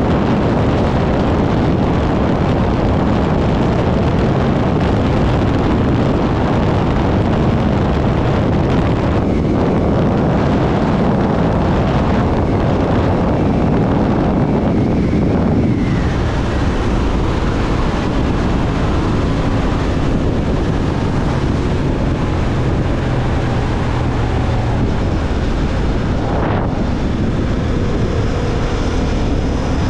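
Motorcycle riding at speed, heard from the rider: steady wind noise over the microphone with the engine running underneath. The low rumble lessens about halfway through.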